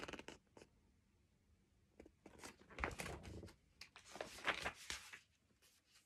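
Pages of a large picture book being turned and handled: faint paper rustles and small clicks in two short spells, about two seconds in and again about four seconds in.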